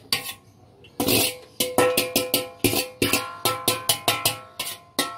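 Metal colander and spoon knocking against the rim of an aluminium cooking pot, tapping boiled rice out into it: one clank near the start, then from about a second in a quick run of ringing metal clanks, four or five a second.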